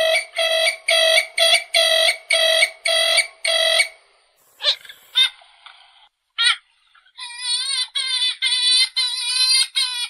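Kalim, the purple swamphen, calling: a series of evenly spaced notes about two a second, which stops about four seconds in. A few scattered calls follow, then a faster series of wavering notes starts about seven seconds in.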